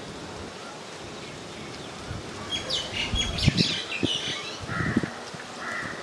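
Small birds chirping in short, high calls from about two and a half seconds in, with a few dull taps as a peahen pecks grain from a wooden plank feeder.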